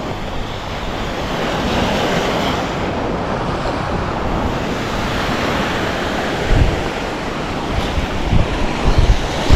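Sea surf washing steadily, with wind buffeting the microphone in a few low thumps in the second half.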